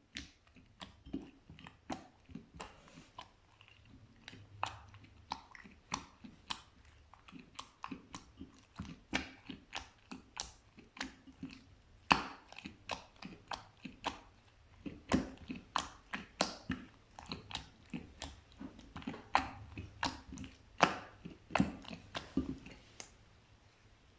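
Slime being squeezed and worked by hand: an irregular run of sticky, wet clicks and pops, a few a second, with one sharper pop about halfway through.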